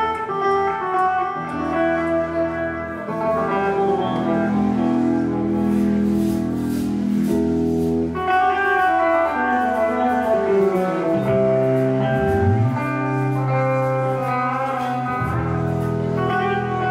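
Live rock band playing: electric guitars ringing with sustained notes over bass guitar and drums, with cymbals crashing. The bass slides up about twelve seconds in.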